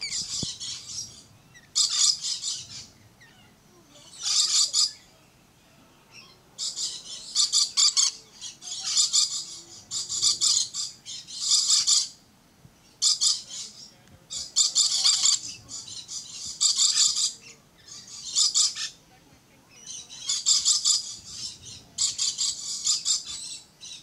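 Lorikeets giving shrill, high-pitched calls in repeated bursts, each up to about a second long, with a short lull about five seconds in.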